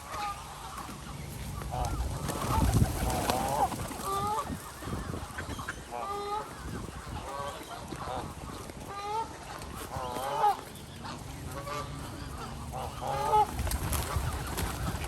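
Geese honking: a flock gives many short, overlapping honks throughout, with a low rumble about two to three seconds in and again near the end.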